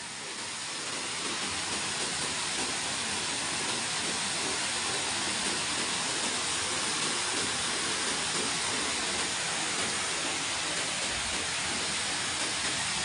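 Waterfall pouring into a rock pool: a steady rushing hiss of falling water, growing a little louder over the first couple of seconds and then holding even.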